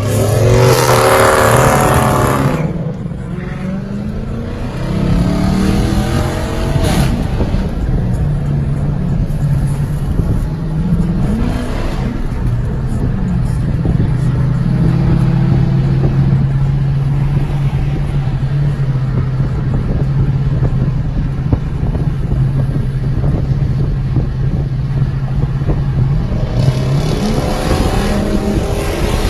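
Car engine accelerating, its pitch rising in the first couple of seconds and again a few seconds later. It then runs at a steady pitch for a long stretch, and the pitch rises once more near the end.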